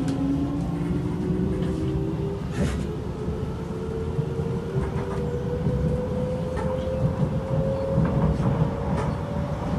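Kawasaki-Nippon Sharyo C751B metro train heard from inside the carriage as it accelerates away from the station. Its traction motors whine in several tones that climb slowly in pitch over a steady rumble of wheels on rails. A brief clatter comes about two and a half seconds in, and a few light clicks follow later.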